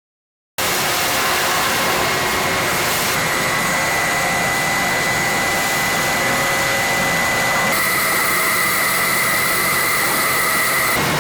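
Soba noodle-making machines running: a loud, steady mechanical noise with a thin high whine, starting suddenly about half a second in. The sound shifts abruptly twice.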